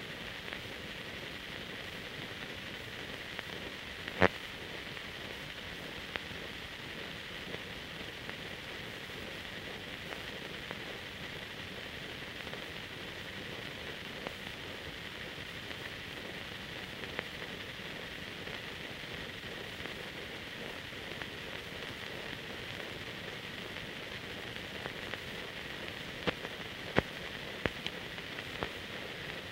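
Steady hiss with scattered sharp clicks and pops, the background noise of an old film transfer with no soundtrack. One loud click comes about four seconds in and a cluster of clicks near the end.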